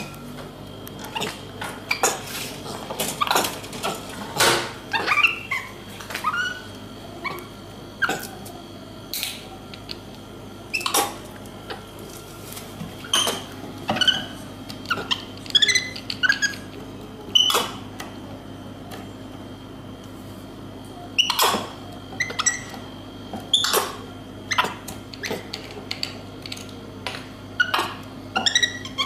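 Many short, squeaky animal calls one after another, some sliding in pitch, over a low steady hum.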